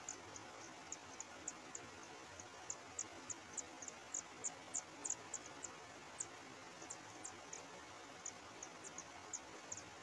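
Kacer air nestlings begging at the nest: many short, very high-pitched peeps at an irregular pace, thickest about three to five seconds in, over a faint steady hiss.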